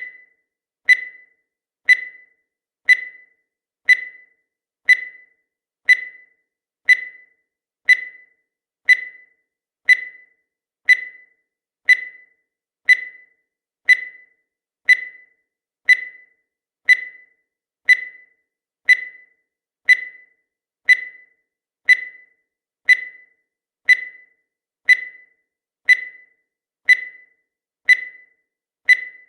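Countdown timer sound effect: a short, high-pitched electronic beep once a second, each dying away quickly.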